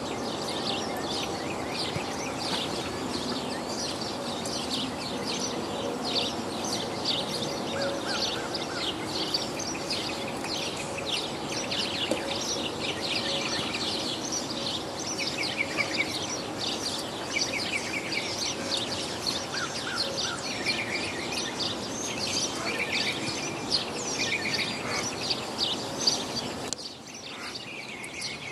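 Many birds chirping continuously over a steady background noise; the lower noise drops away sharply near the end while the chirping goes on.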